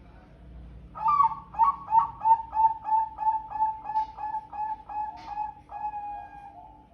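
Zebra dove (perkutut) singing a loud, long, sharp call: a fast run of about fifteen clear cooing notes, roughly three a second, ending in one longer held note.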